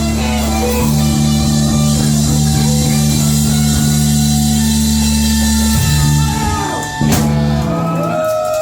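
Live rock band, electric guitar, bass and drum kit, holding a long final chord, then a closing hit with a cymbal crash about seven seconds in that rings out as the song ends.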